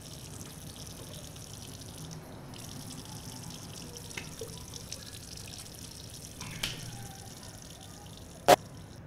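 Water trickling and dripping as a steady hiss, with a few faint drips; a single sharp, loud click about eight and a half seconds in.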